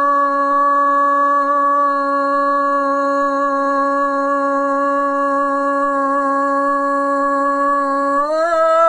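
A man's single long held shout on one steady pitch: a soccer commentator's drawn-out 'gooool' call into a broadcast microphone. The pitch lifts slightly near the end.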